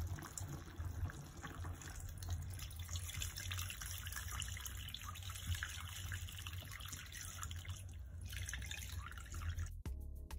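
Palm nut juice poured from a bowl through a metal mesh sieve into a pot of broth, splashing and trickling steadily; it stops abruptly near the end.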